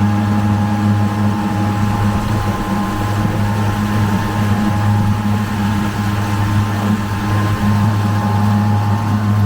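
Boat under way, driven by a 10 HP electric outboard: a steady motor whine over a constant low rumble from the hull and water.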